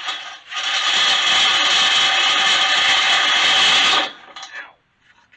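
Cordless drill boring out a hole in a metal bracket to enlarge it, the bit grinding through the metal. A brief burst, then a steady run of about three and a half seconds that stops suddenly.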